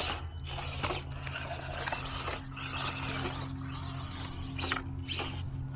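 Small-scale RC crawler scraping and crunching irregularly over dirt and rocks, over a steady low hum.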